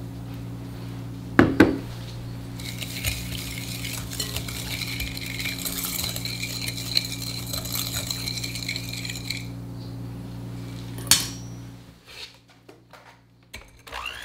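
Wire balloon whisk beating instant coffee, sugar and hot water in a glass bowl, the wires clinking and scraping quickly against the glass. There are a couple of sharp clinks about a second and a half in and one loud knock about eleven seconds in, all over a steady low hum.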